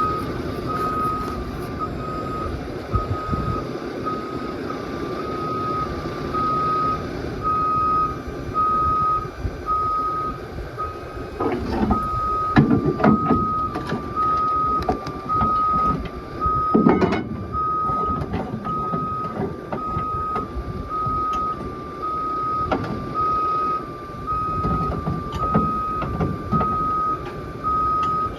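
Vehicle backup alarm beeping at one steady pitch about once a second, over a running engine, with a couple of heavy clunks partway through.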